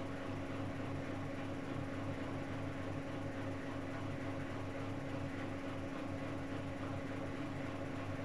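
Whirlpool FSCR90425 washing machine spinning at 600 rpm with an unbalanced load: a steady motor and drum hum with no change in pitch.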